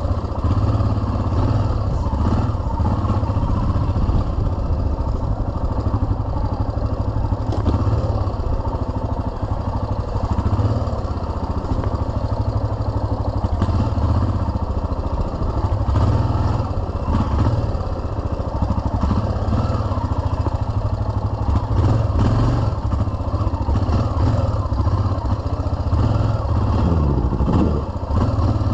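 Yamaha XT 600's single-cylinder four-stroke engine running close to the microphone as the bike is ridden slowly over a rough dirt trail, its pitch rising and falling with the throttle a few times.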